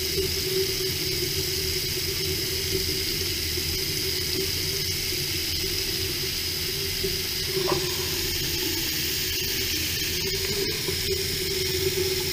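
Hot water from a shower running steadily onto the shower floor and down the drain, a constant splashing hiss with a steady low hum beneath it. A few faint ticks come near the end.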